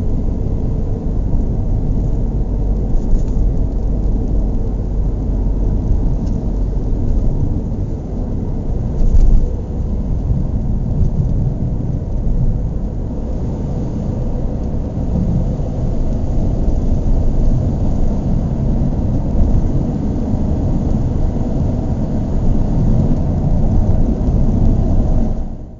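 Car engine running with a steady low rumble, with a brief louder surge about nine seconds in. The sound falls away sharply at the very end.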